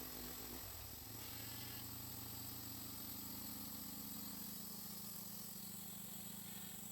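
Portable sawmill's small gasoline engine settling down to a steady idle, its pitch dropping about a second in.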